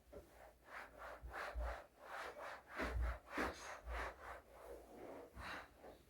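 A cloth wiping the inside of a refrigerator in quick, irregular rubbing strokes, two or three a second. A few strokes land with a dull knock.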